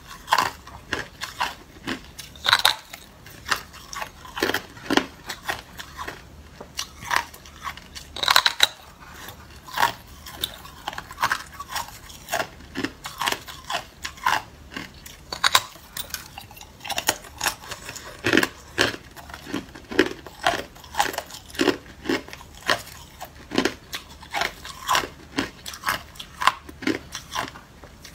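A person biting off and chewing pieces of hard clear ice: a steady run of sharp crunches and cracks, one to three a second.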